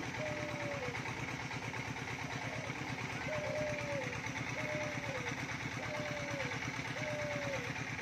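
Common emerald dove cooing: a run of low, mournful single notes, each held briefly and dropping at the end, repeated about once a second. Under it a small engine idles steadily.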